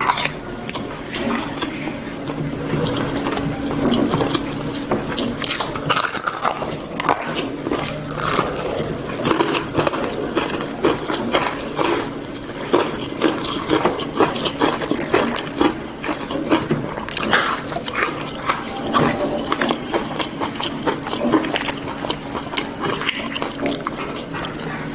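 Close-up chewing of crispy fried chicken and rice: crunching and wet mouth smacking, a dense run of crackles and clicks.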